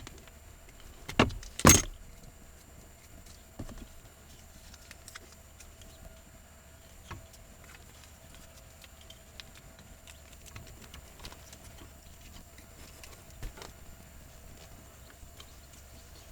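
Two sharp clicks about a second in, then scattered faint ticks and taps over a faint steady hum: hands and tools working wires while soldering a wiring splice.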